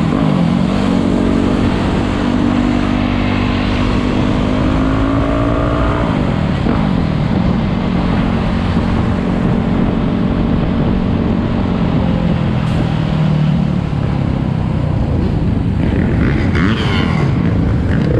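Motorcycle engine running under way, its pitch climbing steadily for about six seconds, then dropping sharply and holding steady before easing off, with wind rumbling over the microphone.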